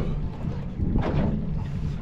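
Wind buffeting the microphone and water sloshing and slapping against a small boat at sea, a steady low rumble with a louder wash about a second in.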